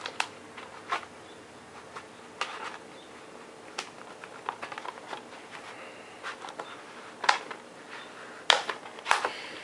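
Handling noise: scattered light clicks and taps from hands handling objects, with a few sharper clicks near the end.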